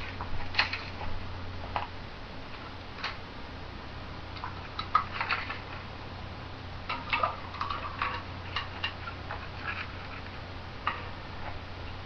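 Scattered light clicks and clinks of kitchenware being handled on a counter, in small clusters about five seconds in and again around seven to eight seconds, over a steady low hum.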